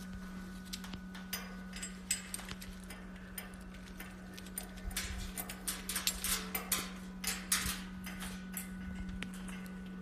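Scattered light clicks, taps and rustles of a white-bellied caique parrot tumbling with a cloth on a hard cage floor, busiest in the middle few seconds, over a steady low hum.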